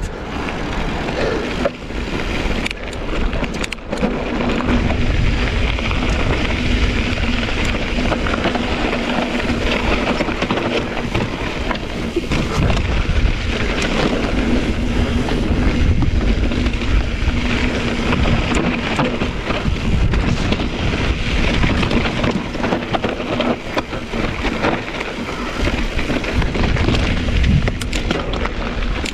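Mountain bike rolling along a narrow dirt and stone singletrack: wind buffeting the microphone, tyres rolling over gravel and rocks, and the bike rattling over bumps. A faint steady low hum runs through the middle stretch.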